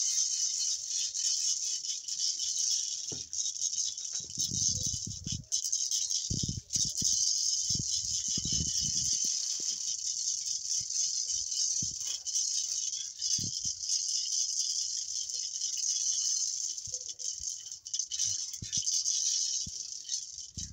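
A handled gourd rattle shaken steadily in a continuous, even, hissing rattle, breaking off twice very briefly. A few dull low thuds come through partway in.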